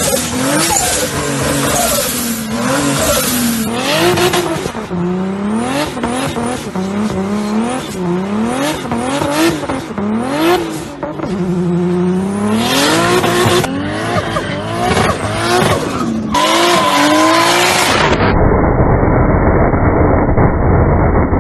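A car engine revving hard, its pitch climbing and dropping again and again. About eighteen seconds in, it cuts to a muffled, steady low rumble.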